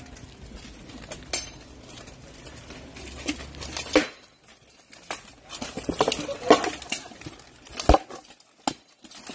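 Steel plate armor clanking as armored fighters close in, with scattered metal knocks and strikes on armor and shield. The hardest hit comes near the end.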